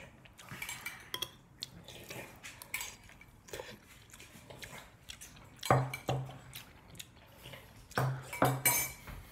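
Metal fork and spoon clinking and scraping against a ceramic bowl of noodle soup, with the mouth sounds of eating. Many small clicks throughout, and a few louder bursts about six and eight and a half seconds in.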